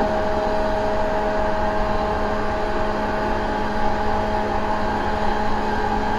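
JR 185 series electric train running at speed, heard from on board: a steady rumble with a constant low hum.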